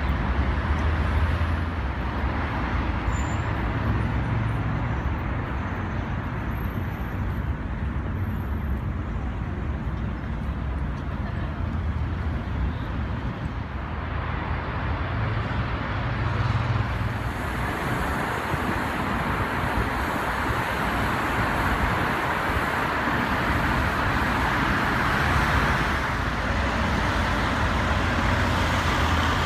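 City road traffic: a steady rumble and tyre noise of cars, taxis and buses passing, fuller and a little louder about halfway through.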